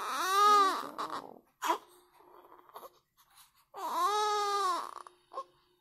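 Newborn baby crying: a wail in the first second and a short cry after it, then a pause, then a second wail of about a second. Each wail rises and falls in pitch.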